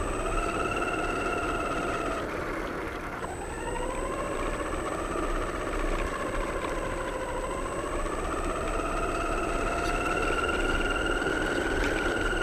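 Radio-controlled model car's motor whining, its pitch rising and falling with the throttle: it drops sharply about two seconds in, climbs again, dips, then rises and holds high near the end. A steady noisy rush lies under it.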